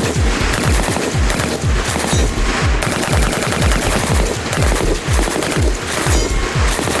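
Sustained automatic machine-gun fire, a fast stream of shots running without a break, mixed with background music that has a heavy, fast beat.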